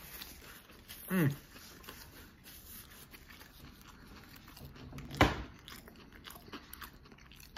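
A person chewing a crispy fried fish taco, with small crunches throughout and a louder crunch about five seconds in. About a second in there is a short hum that falls in pitch.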